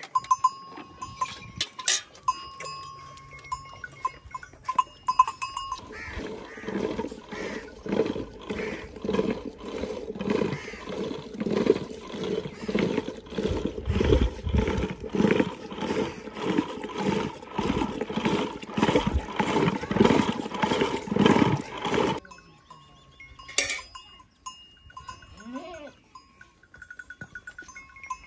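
Curd being churned for butter in a clay pot with a wooden churning stick spun by a rope pulled back and forth: a rhythmic sloshing and swishing at about two strokes a second, starting about six seconds in and stopping suddenly about six seconds before the end. The cattle-yard stretches before and after are quieter, with a thin steady tone.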